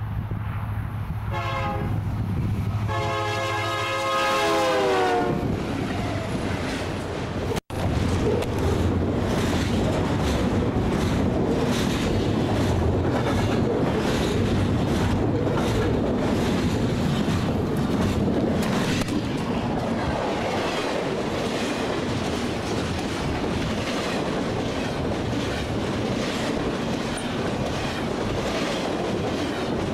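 Union Pacific freight train horn sounding twice at the start, the second long blast dropping in pitch as the lead diesel locomotives pass close at speed. After a brief cutout about eight seconds in, the steady rumble and fast rhythmic clickety-clack of double-stack container cars rushing past at about 70 mph.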